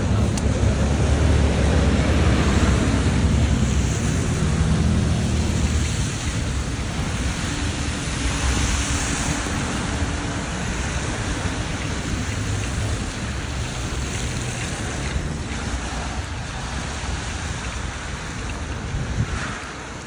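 Wind buffeting the phone's microphone over a steady hiss of car tyres on a wet, slushy road. The rumble is heaviest in the first several seconds and eases off after that.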